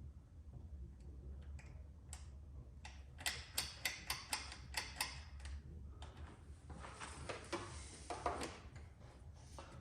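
A quick run of about eight sharp clicks, then a short scraping rattle, as parts are handled while fitting a motorcycle clutch cable, over a low steady hum.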